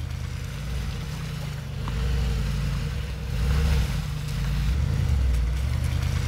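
Mercedes-AMG G63's twin-turbo V8 running at low revs as the SUV crawls slowly over rough, muddy ground, a low rumble that swells a couple of times as throttle is fed in.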